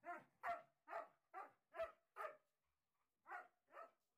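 German shepherd barking: six quick barks in a row, then a short pause and two more.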